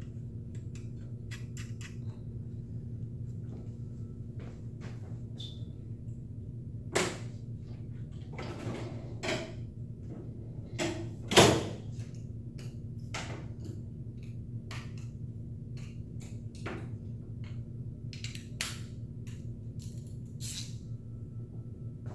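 Scattered clicks and knocks of hand tools and small metal parts being handled, with a sharp knock about seven seconds in and a louder one about eleven seconds in, over a steady low hum.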